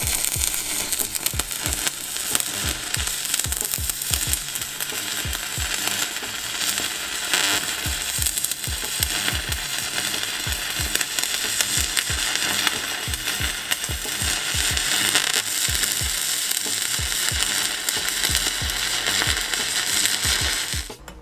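Stick-welding arc from an EWM Pico 160 cel puls inverter in pulse mode, a coated electrode running a butt weld on 5 mm mild-steel plate. It is a steady, loud crackling sizzle with irregular pops, breaking off right at the end as the arc is broken.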